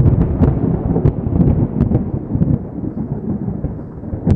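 Thunder-crash sound effect: a loud, rolling rumble with sharp crackles, as of lightning striking.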